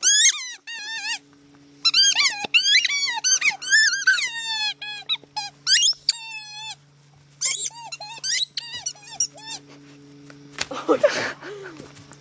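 A dog chewing a squeaky ball, setting off quick runs of high-pitched squeaks that slide up and down in pitch, in bursts with short pauses between them.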